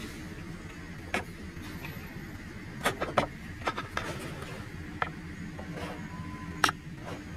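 A steady low hum with a handful of sharp clicks scattered through it, the loudest about a second in, around three seconds in and near the end.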